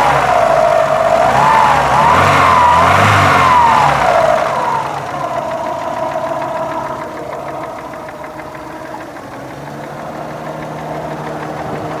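Car engine revved by hand a few times, its pitch rising and falling, then settling to a steady idle about four and a half seconds in. The engine is being checked for a knock.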